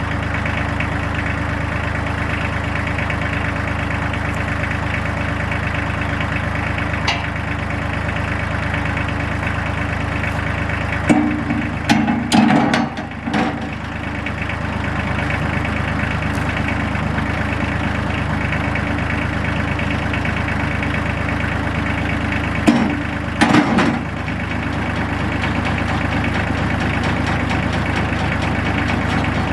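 Tractor engine running steadily, with two short spells of clunks and knocks, the first about 11 seconds in and the second about 23 seconds in.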